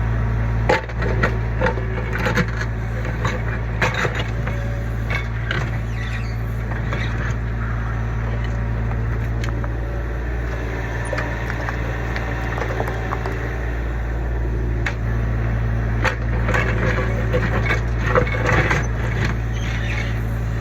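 Kubota U25 mini excavator's diesel engine running steadily under load, with repeated sharp cracks, crunches and splintering as the bucket digs out and breaks up the old footing. The cracking is busiest in the first few seconds and again near the end.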